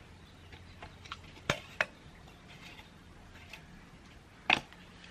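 A few scattered light taps and clicks, the loudest about four and a half seconds in, over a faint low steady hum.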